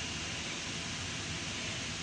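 A steady hissing running noise with a low fluttering rumble underneath, unchanging throughout.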